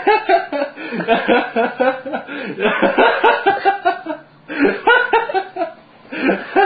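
Laughter in many short, quickly repeated bursts, easing off briefly about four seconds in and again about six seconds in.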